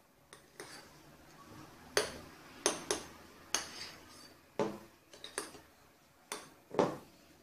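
Metal spoon clinking and scraping against a glass bowl while stirring a thick cream mixture: a dozen or so sharp, irregular knocks, about one a second.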